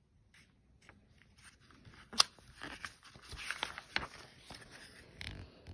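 Pages of a picture book being turned by hand: paper rustling with a few sharp clicks and snaps, the sharpest about two seconds in.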